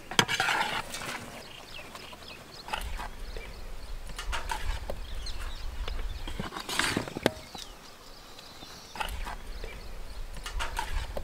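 Hands tossing and mixing sliced potatoes in a large steel bowl, with scattered clicks and rustles. A low rumble of wind on the microphone comes and goes.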